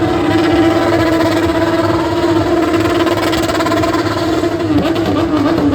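Motorcycle engine held at steady revs: one sustained note that wavers slightly, with a brief change in pitch near the end.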